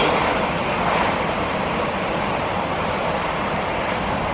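Freight train hauled by a JR Freight EF210 electric locomotive passing: a steady noise of wheels running on the rails, easing slightly toward the end.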